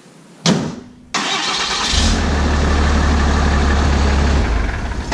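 A pickup hood slams shut once, then the Ram's 6.7 L Cummins turbo-diesel cranks briefly and fires, running at a steady low idle on a freshly swapped pair of batteries.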